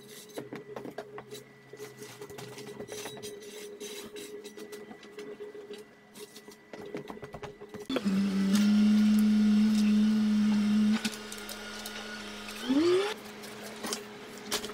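Rustling and light clicks from a plastic tarpaulin being handled and tied off, then, about eight seconds in, a loud steady mechanical hum that drops in level about three seconds later and ends with a short rising sound.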